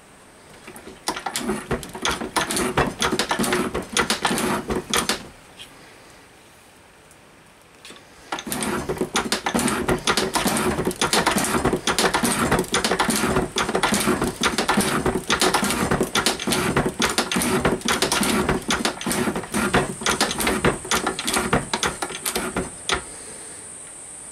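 Hand-lever bench shaper taking a near-final cut on a steel plate: the tool scrapes through the metal with a dense run of rapid small clicks as chips break off. It runs for about four seconds, stops, then runs again for about fifteen seconds before stopping near the end.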